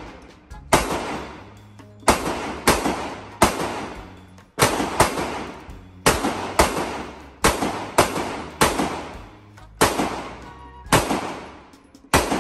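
Handgun shots fired in neighbouring lanes of an indoor shooting range, about fourteen in all at irregular intervals of half a second to a second, each ringing off the walls and fading slowly.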